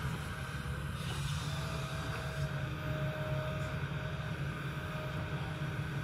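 Kobelco crawler excavator's diesel engine running steadily as it works its boom and bucket, with a faint high whine from about one and a half to four seconds in.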